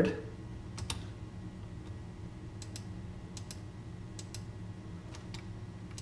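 A handful of sharp computer clicks from a mouse and keyboard, several of them in quick pairs, over a faint steady hum of room tone.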